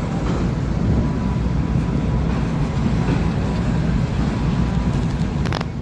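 Steady low rumble of a moving vehicle, with a brief sharp clatter about five and a half seconds in.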